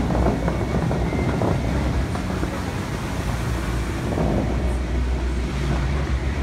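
Bellagio fountain water jets rushing and their spray falling back onto the lake, as a steady noisy wash over a low rumble.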